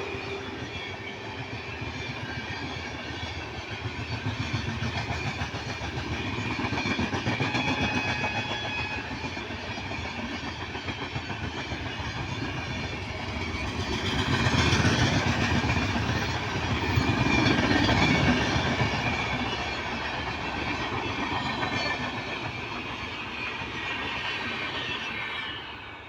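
Indian Railways train running along the track: a steady clatter and rattle of wheels on rails that grows louder for a few seconds past the middle.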